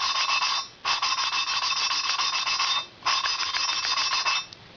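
Harley-Davidson Sportster 1200 Evolution valve being hand-lapped into its seat with cutting compound: a gritty scraping of valve face on seat in spells of about two seconds with brief pauses, stopping near the end.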